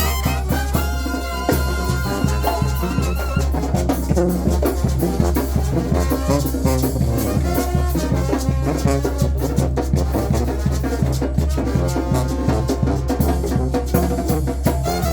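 Oaxacan brass band playing: trumpets and trombones carry the tune over a steady drum beat, with a rising brass glide near the end.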